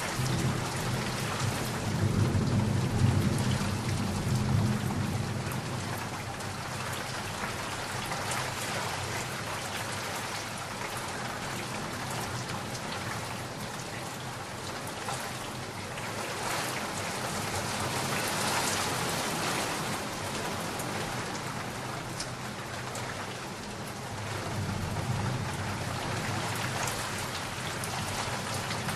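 Steady heavy rain falling, with a low rumble of thunder a couple of seconds in and another, fainter rumble near the end.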